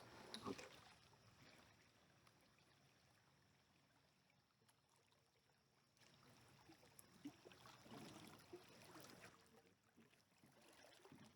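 Near silence, with a few faint, brief soft sounds half a second in and again around seven to eight and a half seconds in.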